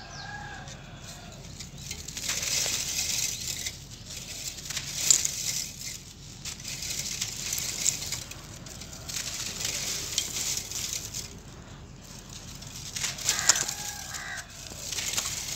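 Dry sand-cement lumps crushed and crumbled by hand, grit and dust pouring through the fingers onto a wire grate. A gritty, crunching hiss comes in swells every second or two, with a few sharper crackles.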